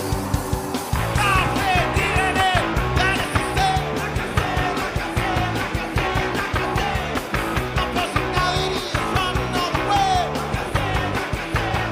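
Live rock band playing loud garage-punk: electric guitars, bass and drums, with a shouted lead vocal coming in about a second in.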